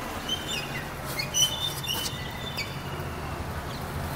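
Hungry puppies whining as they beg for food: a string of short, high-pitched squeaky whines in the first two and a half seconds.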